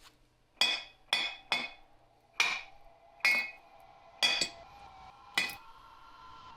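Metal struck seven times at uneven intervals, each blow ringing briefly at the same pitches; a faint steady tone comes in near the end.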